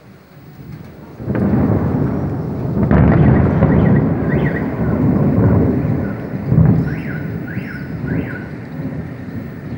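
Thunder: a deep rumble breaks in sharply about a second in and rolls on for several seconds, with another sharp clap a little past the middle, then eases off. Light rain hisses underneath.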